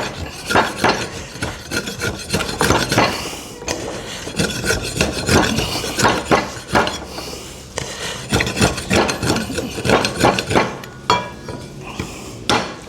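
A wooden handle scraping, rubbing and knocking against the metal socket of a slasher blade in irregular strokes as it is worked and forced into place.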